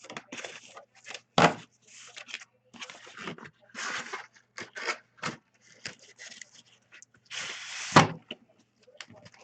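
Cards and their packaging being handled on a table: rustling and scraping of cardboard and plastic with scattered clicks and knocks, a sharp knock about a second and a half in and another near the end after a longer scrape.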